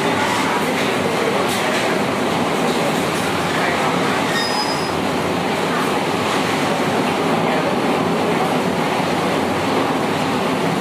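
Heavy rain pouring down in strong wind, a steady, even rush of noise.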